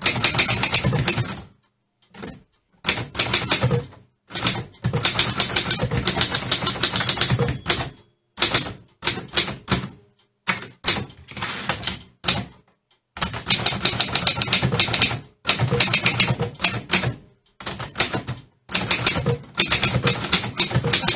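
Typewriter being typed on: quick runs of sharp key strikes, several a second, broken by short pauses and a few brief silent gaps.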